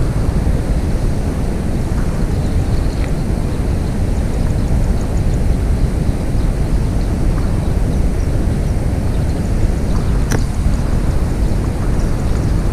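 Steady low rumbling noise with no distinct pitch, and a single sharp click about ten seconds in.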